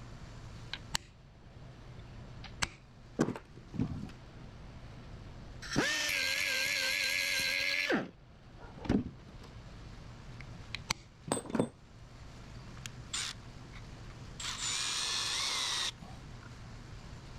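Handheld power drill running in two short bursts, about two seconds and then a second and a half, its whine wavering slightly under load, with clicks and knocks of tools being handled between them.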